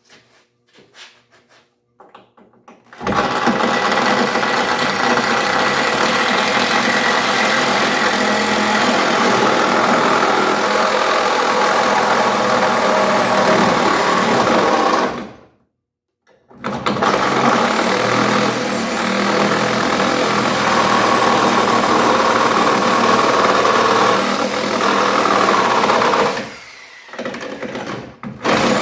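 Power saw cutting through the car's sheet-metal body. It starts about three seconds in, cuts off suddenly for about a second midway, runs again, and trails off near the end.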